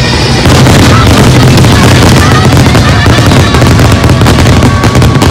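Dense barrage of fireworks: rapid overlapping bangs and crackling over a heavy low rumble, typical of a show's finale, with show music mixed in.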